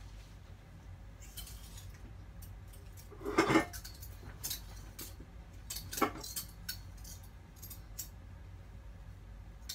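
Clothes hangers clicking and clinking against a clothes rail as garments are lifted off it, a scatter of short, sharp ticks with a louder clatter about three and a half seconds in and another around six seconds.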